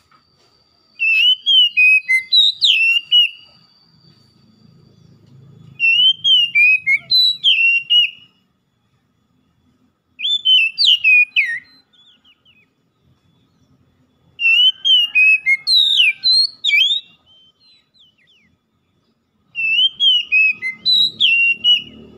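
Oriental magpie-robin singing: five loud whistled phrases a few seconds apart, each about two seconds of quick rising and falling notes.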